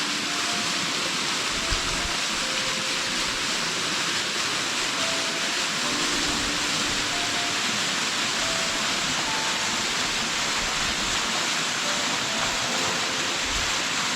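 Waterfall pouring steadily: a constant, even rushing of falling water.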